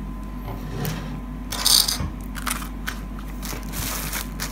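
Clear plastic bag around a folded T-shirt crinkling as hands handle it and pull it open, in irregular rustling crackles, the loudest a little under two seconds in.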